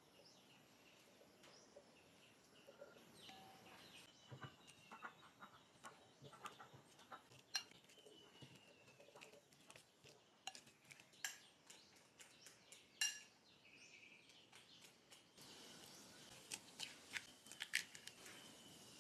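Scattered light clinks and taps of kitchen utensils against dishes and pans, irregular, with a few sharper knocks standing out.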